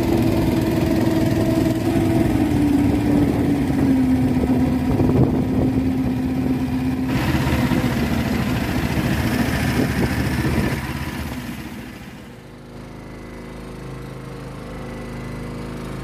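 Engine of a small fishing boat running steadily. Its note drops slightly in pitch about three seconds in, and from about eleven seconds it falls to a much quieter, lower-pitched hum.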